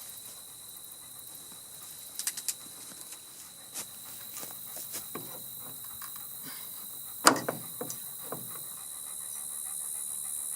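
Insects trilling steadily in the background, with a few scattered clicks and knocks. The loudest, a sharp knock, comes about seven seconds in.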